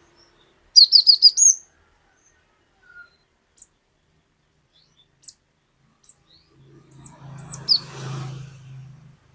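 Cinereous tit (glatik batu) singing: a quick, loud run of about five sharp falling notes about a second in, then scattered single high chirps. Over the last few seconds a low hum with a hiss rises beneath the calls.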